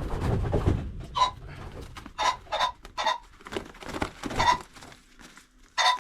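Pheasants giving a string of short calls, about seven spread over the few seconds, with rustling and handling noise in the first second.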